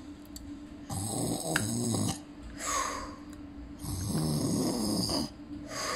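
A child imitating snoring for a sleeping toy truck: two snore cycles, each a long rasping inhale followed by a short breathy exhale.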